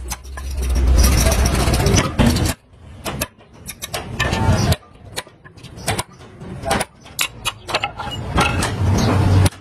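Hammer striking a punch to drive out the rivets of a truck drum-brake shoe, stripping off the old brake lining: a run of sharp metal strikes at irregular intervals. A low rumble sits under the first two seconds and comes back near the end.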